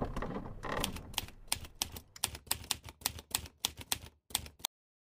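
Typewriter keystrokes as a sound effect, a quick irregular run of sharp clacks, about four or five a second, that stops abruptly near the end.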